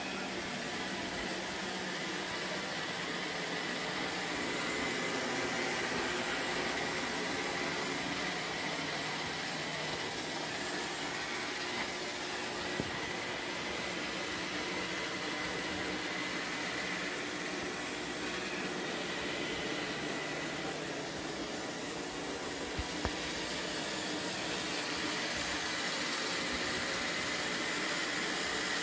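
iRobot Roomba 690 robot vacuum cleaning carpet: a steady whir of its vacuum motor and brushes with a thin high whine, and a couple of faint ticks.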